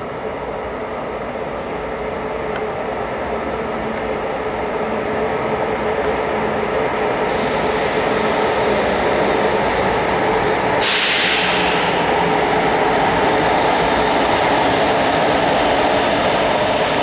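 Renfe 446-series Cercanías electric train pulling slowly into an underground station to stop at the platform, its wheel and motor running noise with a steady hum growing louder as it nears. About eleven seconds in there is a short, sharp hiss of air.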